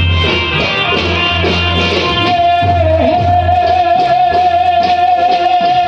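Loud amplified folk music with a heavy pulsing bass beat and drumming. About two seconds in, a single long high note comes in and is held.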